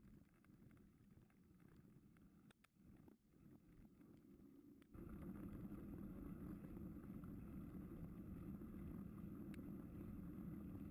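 Mountain bike rolling over a dirt and gravel track, heard as a low rumble with wind on the camera microphone and a few light rattling clicks; the rumble gets suddenly louder about five seconds in.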